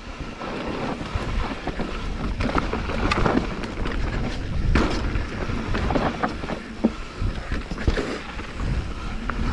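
Mountain bike riding fast down a dirt trail: wind rushing over the microphone, tyres rumbling on the dirt, and the bike rattling and clicking over bumps.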